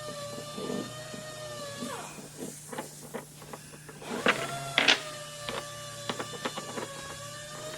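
A small electric motor whining at a steady speed in two runs, each winding down in pitch as it stops, with scattered clicks and knocks in between.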